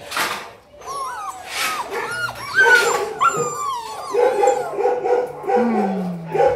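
A litter of puppies whining and yelping with high cries that bend up and down. After about four seconds they go over to short, repeated yips, about three a second.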